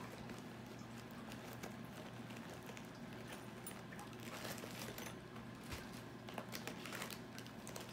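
Faint handling noise of someone searching for a pair of scissors: scattered light clicks and rustles of things being moved about, over a steady low hum.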